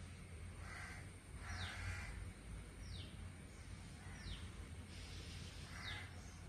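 Wild birds calling: short high whistled notes that slide downward, repeating about every second and a half, mixed with a few harsher, noisier calls, over a steady low rumble.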